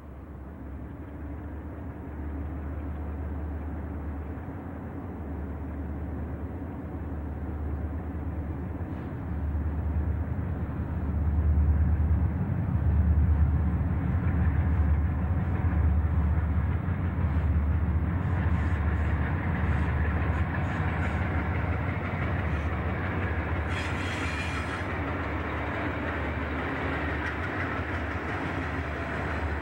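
Freight train passing close by, hauled by several diesel locomotives: a heavy low rumble that builds to its loudest about twelve seconds in as the engines go by. After that come the rolling rumble and clicking of hopper cars over the rail joints, with a brief high hiss about 24 seconds in.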